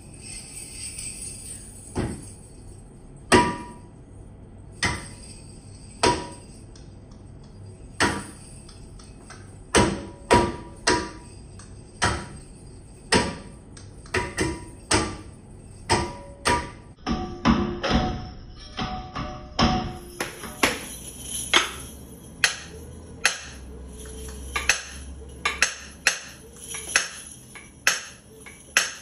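A series of sharp percussive strikes, each with a short ring, about one a second at first, then coming faster and closer together from about twenty seconds in.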